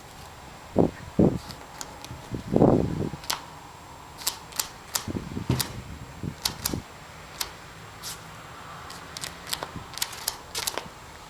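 Yorkshire terrier digging in sandy, pebbly soil, its paws scraping and flicking dirt. A few dull thumps come in the first three seconds, then a run of sharp, irregular clicks and ticks.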